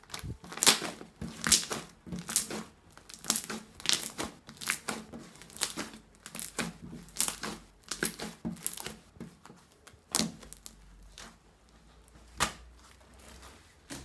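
Fluffy shaving-foam slime being stretched, folded and squeezed by hand, giving a run of sticky crackling pops, about two to three a second, which thin out to a couple of single pops in the last few seconds.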